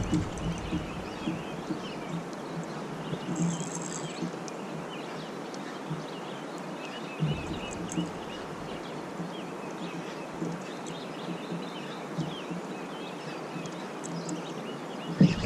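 Outdoor river ambience: a steady rush of background noise with many small bird chirps scattered through it and a few soft knocks.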